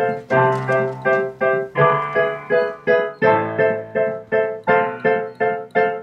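Background score music: a piano-like keyboard repeating short, sharply struck notes at a quick steady pulse of about three a second, over a lower held note.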